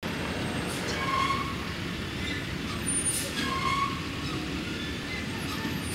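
Steady outdoor traffic rumble from a residential street, with short higher tones and brief hissy surges recurring every couple of seconds.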